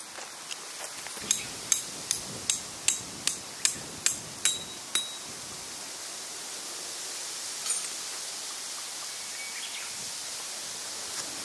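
Metal tent peg being driven into the ground with a hammer: about ten sharp, ringing metallic strikes at roughly two and a half a second, then one more strike a few seconds later.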